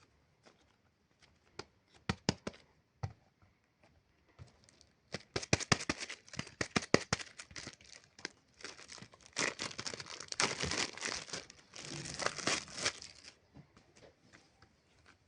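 Plastic packaging being torn open and crinkled by hand: a few scattered crackles, then a run of dense crackling and tearing about five seconds in, and rustling bursts that stop a couple of seconds before the end.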